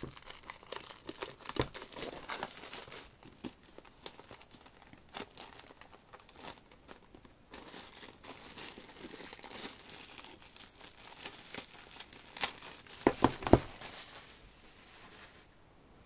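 Plastic shrink-wrap crinkling and tearing as it is pulled off an album, with a run of irregular crackles and a few louder, sharp crackles near the end.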